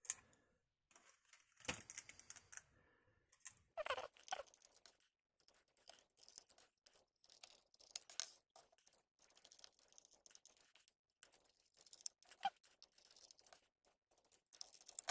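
Faint scattered clicks, taps and rustles of hands handling a graphics card, its plastic and metal backplate and cooler shroud being pressed together and shifted.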